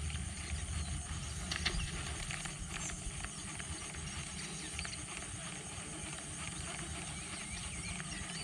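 Steady outdoor background noise under a constant high insect drone, with a few light clicks.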